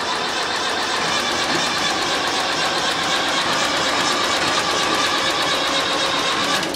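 Diesel engine of an International BTD6 crawler tractor turning over steadily with an even rhythm as it is started after six years standing, its exhaust smoking. The sound cuts off suddenly near the end.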